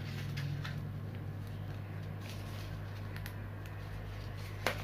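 Quiet room tone with a steady low hum, and a few faint clicks and rustles of small craft items being handled. One sharper click comes near the end.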